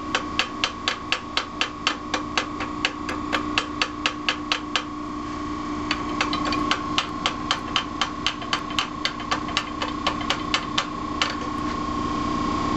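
A hand hammer striking metal in quick, even blows, about four a second, in two runs with a short pause about five seconds in.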